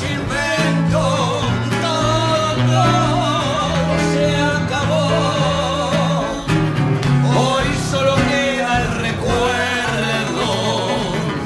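Live tango played on grand piano and acoustic guitar, with a voice singing in a wavering vibrato over the accompaniment.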